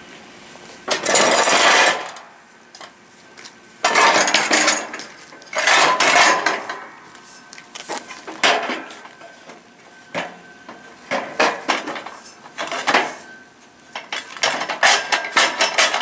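Metal boat-hoist frame members clanking and scraping against each other as a post is lifted and fitted into a corner bracket on the base beams. The sound comes as a series of irregular clanks and scrapes, with a quick run of clicks near the end.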